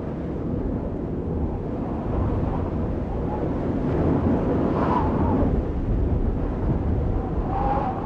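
Outro sound effect: a low rumbling noise that swells a little after about two seconds, with faint short tones about five seconds in and again near the end.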